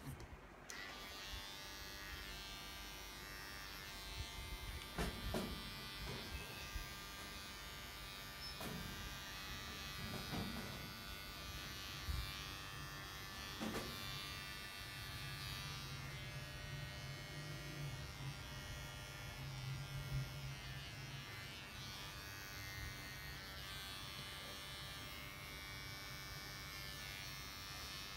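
Electric pet grooming clippers switched on and running with a steady buzz, with a few light knocks over it.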